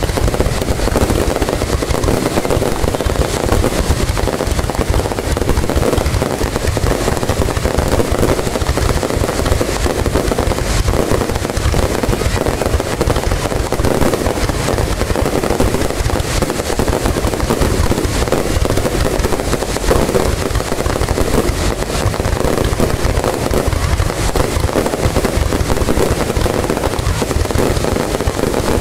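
Fireworks display: a dense, unbroken crackle of many small bursts with no pauses.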